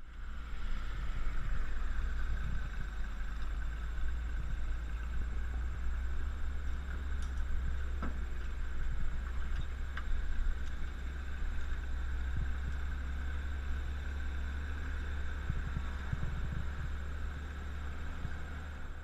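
Vintage Dodge Power Wagon truck driving a farm trail: a steady low engine and drivetrain rumble, with a couple of sharp clicks or rattles near the middle.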